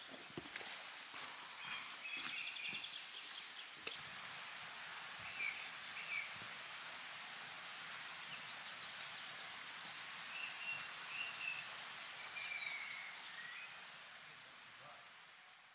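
Outdoor ambience: a steady hiss with small birds chirping in short runs of quick falling notes, several times over. A sharp knock comes about four seconds in.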